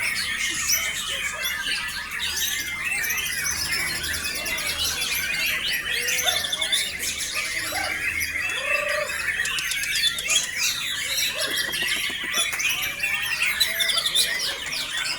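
White-rumped shamas (murai batu) singing, many overlapping fast whistles, trills and harsh calls in a dense unbroken chorus.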